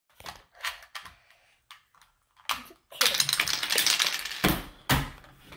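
Plastic Rubik's Cube clicking as its layers are turned. This runs into a second and a half of rapid clattering and then two heavier knocks near the end as the cube breaks apart into pieces.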